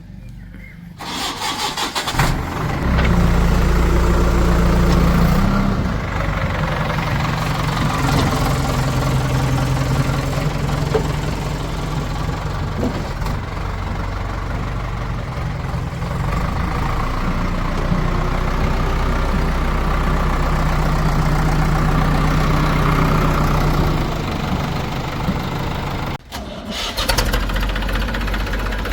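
Diesel engine of a tractor or backhoe cranking and catching about a second or two in, then running steadily, its pitch rising and falling with the load. A brief dropout near the end.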